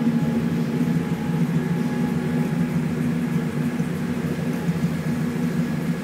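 Honda H22 four-cylinder VTEC engine in a Civic idling steadily through a Skunk2 Mega Power cat-back exhaust with no catalytic converter. Its pitch holds level throughout.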